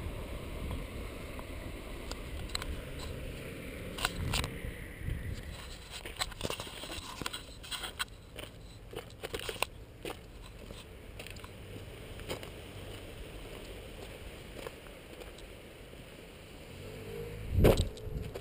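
Handling noise of a handheld action camera carried along a gravel and stone path: scattered crunching and scraping clicks over a low wind rumble on the microphone, with one loud bump near the end.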